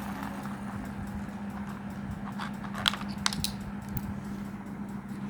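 A steady low hum with a handful of short, sharp clicks between about two and a half and four seconds in, the loudest near the three-second mark.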